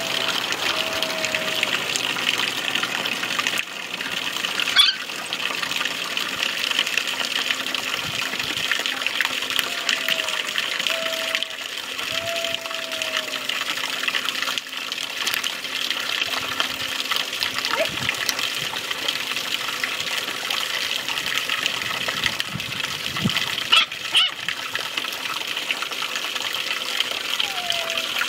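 Water spraying and splashing steadily onto dirt, with short thin whimpers from 3½-week-old Labrador puppies at the start, twice around the middle and again at the end. There are a couple of brief sharp knocks.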